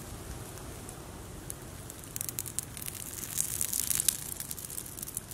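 Open wood fire crackling under a snakehead fish roasting on a stick. From about two seconds in it breaks into a dense flurry of sharp pops and crackles, heaviest a little before the end, over a low steady background rumble.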